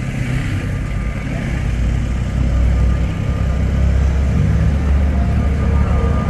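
A vehicle running close by: a steady low rumble that grows louder about two seconds in, with a faint thin whine joining in later.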